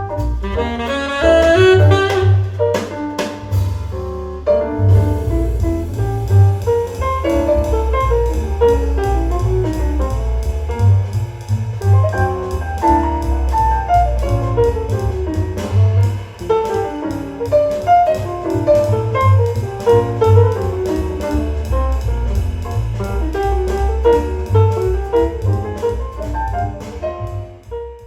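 Jazz recording with saxophone, double bass, drums and piano, played back on an Audio Note hi-fi system through the DAC 2.1X Signature. Cymbals join about four seconds in.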